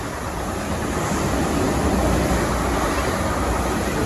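A twelve-car train of three Class 450 Desiro electric multiple units running past below: a steady rush and rumble of wheels on rail that swells about a second in.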